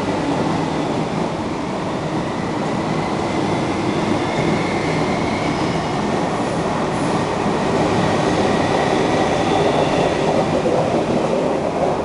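Intercity through train running non-stop through a station on steel rails: a steady rumble of wheels on track, with a faint thin whine above it that swells a little near the end.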